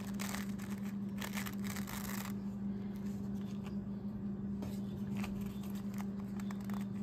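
Thin paper napkin rustling and crinkling as fingers peel its plies apart. The rustling is dense for the first two seconds or so, then thins to light crinkles and ticks, over a steady low hum.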